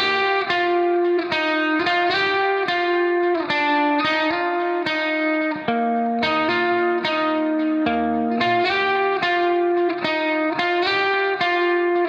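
Background music: a plucked guitar melody with notes struck about twice a second, with no singing.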